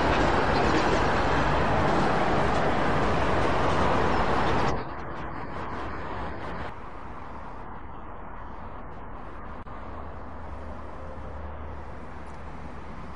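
Boeing 747-8i jet engines (General Electric GEnx-2B) running loud and steady, the noise dropping abruptly about five seconds in and again a couple of seconds later to a much quieter, steady low rumble.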